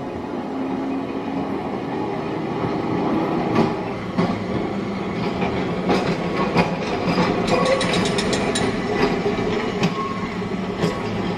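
Blackpool electric tram running on its track: a steady running noise with irregular clicks and knocks from the wheels over the rails.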